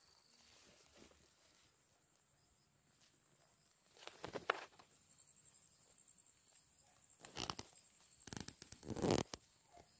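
Faint footsteps and rustling through low undergrowth and leaf litter. There are a few short scuffs about four seconds in, then a quicker run of them near the end, and near quiet in between.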